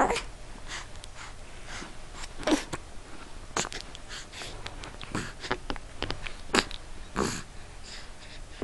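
Repeated hiccups: short, sharp hics at irregular gaps of about one to two seconds, with faint breathing between them.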